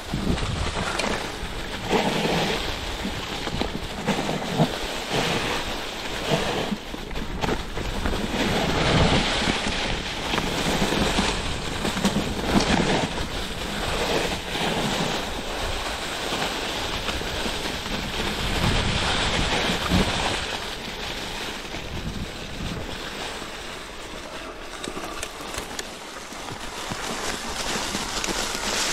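Wind rushing over the microphone, swelling and easing every second or two.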